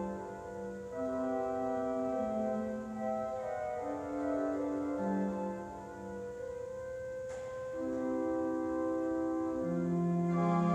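Hook & Hastings pipe organ (opus 1874, c. 1900) playing slow, held chords that change every second or so. There is a faint click about seven seconds in, and the organ grows louder and brighter near the end.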